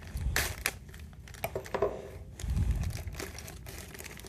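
Clear plastic bag crinkling and crackling as it is cut open with a knife and handled, with a dull low thump about two and a half seconds in.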